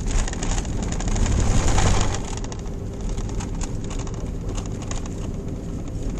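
Engine and tyre noise heard from inside a car being driven on a snowy road, a steady rumble that grows louder for about a second shortly after the start.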